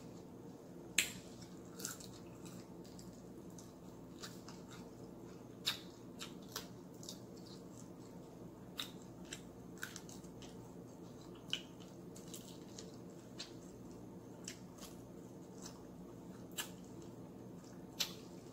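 Close-up eating sounds of fried chicken eaten by hand: scattered sharp clicks and smacks of biting, chewing and finger-licking, irregular, roughly one a second, the loudest about a second in and near the end. A steady low hum runs underneath.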